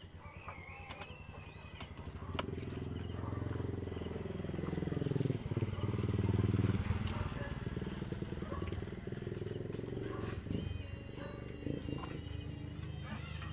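Motorcycle engine running, getting louder to a peak about six or seven seconds in and then easing off, with a few short high chirps near the start.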